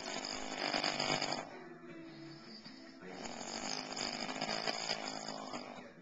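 A man snoring in his sleep, loud enough to be likened to a beast: one long rattling snore ends about a second and a half in, a quieter breath follows, and a second long snore starts about three seconds in and dies away near the end.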